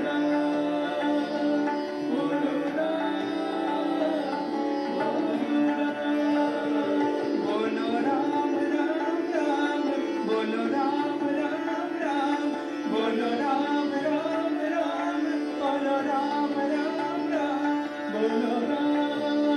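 Hindustani devotional bhajan in Raag Mishra Kirwani: two male voices singing an ornamented, gliding melody over harmonium, tabla and a tanpura drone.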